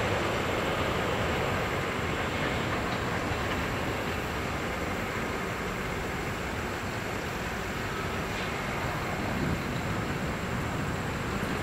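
Autorack freight cars rolling away down the track: steady wheel-on-rail noise from the tail end of the train.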